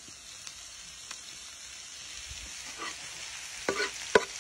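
Sliced onion, carrot, bell pepper and grated potato sizzling in hot oil in a frying pan, a steady high hiss. A utensil stirring them knocks against the pan a few times near the end, the loudest knock just after four seconds in.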